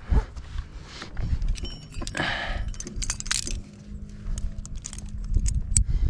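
Metal climbing gear, carabiners and cams, clinking and jangling as it is handled, with a rustle about two seconds in.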